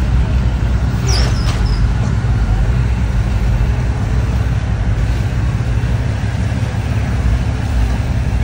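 Car engines running in a steady low rumble, with a brief high squeal about a second in.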